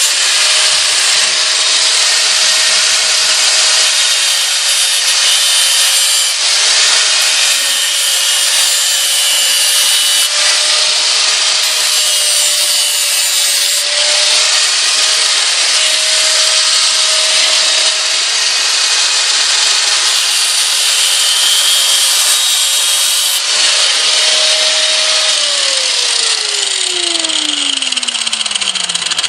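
Angle grinder cutting and grinding the edge of a piece of sheet metal straight: a steady motor whine under a loud, harsh hiss of the disc on the metal. About 25 seconds in it is switched off, and the whine falls away as the disc spins down.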